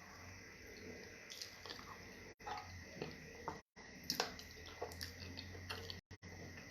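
Faint, scattered wet clicks and smacks of fufu and stew being eaten, over a steady low hum; the sound cuts out completely for a moment a few times.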